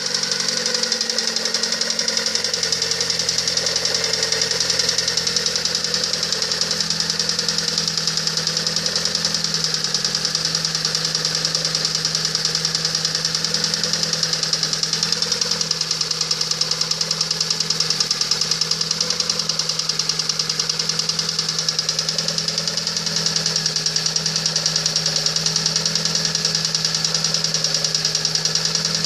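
Lada Priora engine running at a steady speed with a rapid, regular knock that keeps time with the engine.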